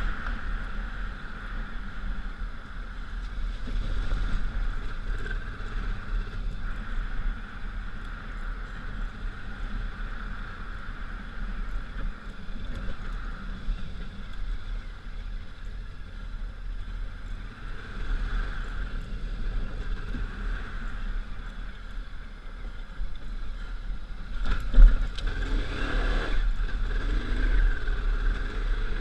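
1999 Honda Africa Twin's V-twin engine running as the motorcycle is ridden over rough trail, with a heavy low rumble. There is one sharp knock about 25 seconds in.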